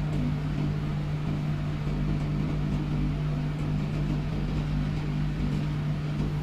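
Steady low mechanical hum, holding one pitch without change, with a faint hiss and a few faint ticks over it.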